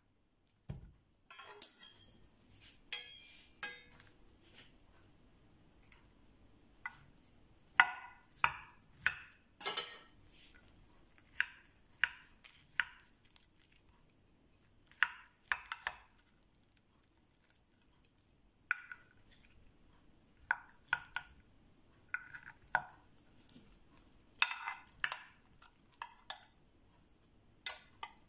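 A metal knife and a metal serving spatula clink and scrape against a glass baking dish while cutting through and lifting out a baked casserole. The sound is a string of short, irregular clinks and scrapes, sometimes several in quick succession, with pauses between them.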